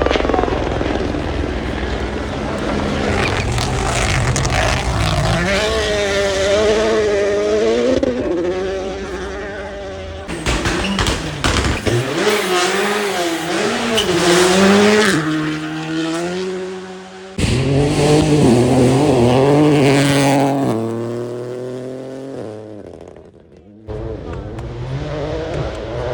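Rally cars at full speed on a special stage, engines revving up and down in pitch through gear changes as they pass. Several separate passes follow one another, each cut off abruptly.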